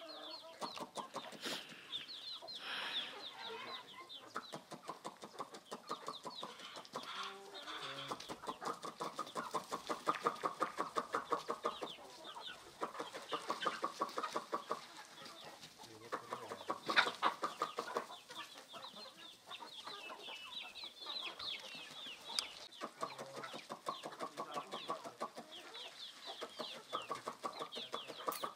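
A flock of local indigenous chickens clucking all at once in a continuous busy chatter, with a few louder calls standing out now and then.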